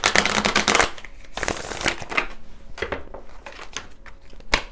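A deck of oracle cards being riffle-shuffled by hand. There is a rapid run of card flicks for about the first second, a shorter run about a second and a half in, then scattered soft ticks as the deck is squared and handled.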